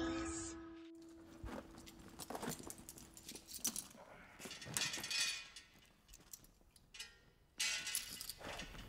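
Rummaging through a leather shoulder bag: faint rustling and small items clinking in short spells, with a quiet pause of about a second and a half before it picks up again, louder, near the end.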